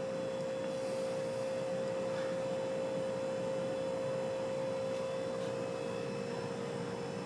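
Hunter Original ceiling fan's oil-bath motor running on low speed: a steady hum with one clear, even tone.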